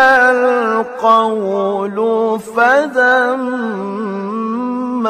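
A man reciting the Qur'an in the melodic mujawwad style, holding long vowels and ornamenting them with runs, with a couple of short breaks for breath.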